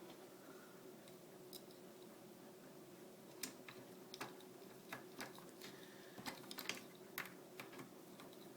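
Near silence with faint, irregular clicks and light taps of hand work on the till's key lock: a Phillips screwdriver and small metal parts being handled as the mounting screws go back in. The clicks are sparse at first and more frequent from about three seconds in.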